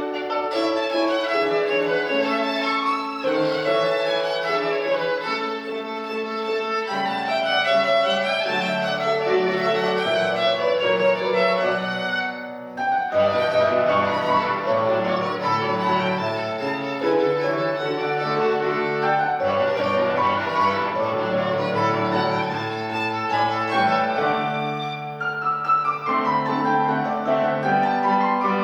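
Solo violin playing a classical piece with piano accompaniment, the music pausing briefly about halfway through before going on.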